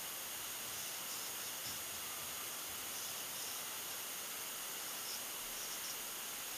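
Steady low hiss of background recording noise, with a few faint, short scratches of a felt-tip marker drawing lines on paper.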